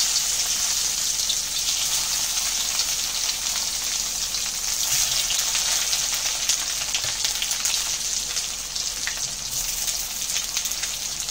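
Whole masala-stuffed bitter gourds frying in hot oil in an iron kadhai: a steady, dense sizzle with fine crackling spatter, kept up as more gourds are laid into the oil one after another.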